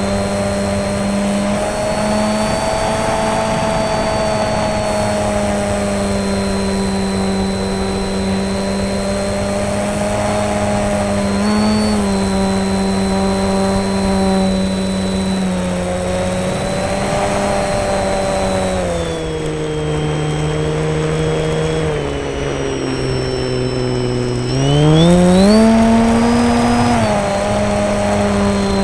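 Electric motor and propeller of a foam RC plane droning at a steady pitch, heard from on board with a rush of air. About two-thirds of the way through the pitch sinks as the throttle is eased off, then climbs sharply as it is opened again, and settles back.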